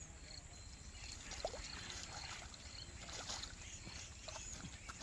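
Water splashing and sloshing for a few seconds, loudest in the middle.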